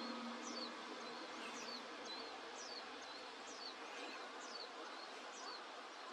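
A small bird calling faintly: a thin, high note that slides downward, repeated roughly once a second, over a steady outdoor hiss.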